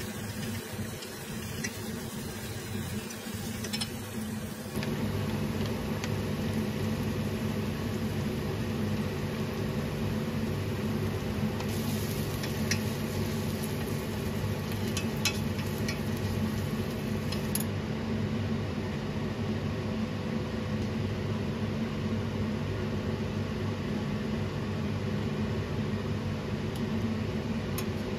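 Steady machine hum with a low drone, typical of a kitchen appliance such as a range-hood fan or microwave running. A few faint clicks of utensils or dishes come around the middle.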